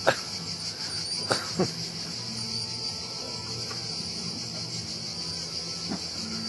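Steady, high-pitched drone of insects, with a few sharp knocks, the loudest just after the start and two more about a second and a half in. A faint low strain of music sits beneath.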